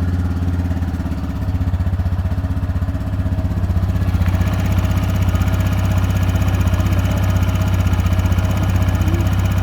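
TVS Raider 125's single-cylinder engine idling steadily just after a start, with a repetitive tick-tick-tick from the engine, a ticking noise it has had for a long time and which the owner is taking to the service centre to be fixed.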